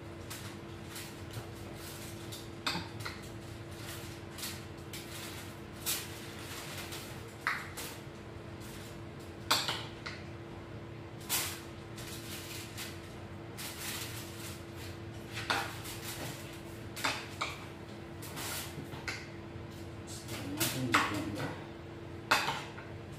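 Aluminium foil crinkling and rustling in short, irregular bursts as a whole fish is handled and stuffed on it, over a steady low hum.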